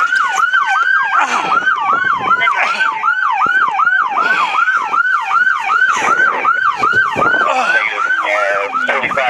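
Police car sirens on the yelp setting, a fast rise-and-fall wail about three times a second. A second siren's tone glides slowly down over the first few seconds.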